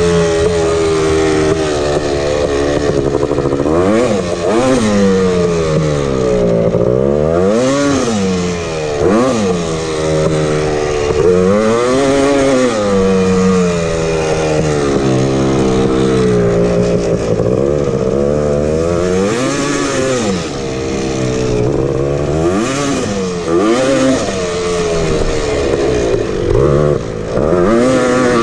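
Honda TRX250R's two-stroke single-cylinder engine being ridden hard, revving up and dropping back over and over, its pitch rising and falling every one to three seconds.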